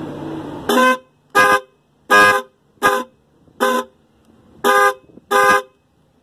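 Car's electric disc horn sounding in seven short blasts as a lead from the battery positive is tapped onto its terminal. Fed battery voltage directly this way, the horn sounds, so it works.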